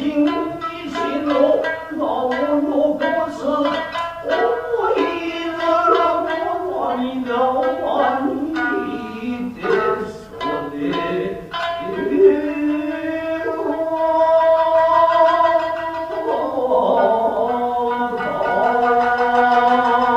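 Japanese traditional dance music: plucked shamisen notes and drum strikes, giving way about two-thirds through to long held sung notes.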